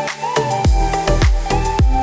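Electronic background music with a steady kick-drum beat and synth melody. The bass and drums drop out for about half a second at the start, then the beat comes back in.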